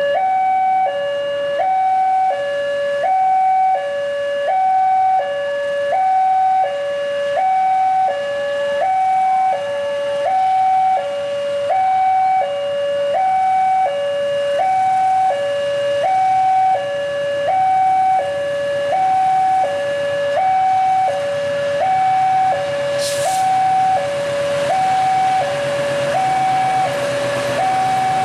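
Railway level-crossing warning alarm sounding: an electronic two-tone signal alternating steadily between a lower and a higher tone, each held about two-thirds of a second. From about halfway, the low running of a diesel locomotive grows beneath it as the train pulls out, with a short hiss a few seconds before the end.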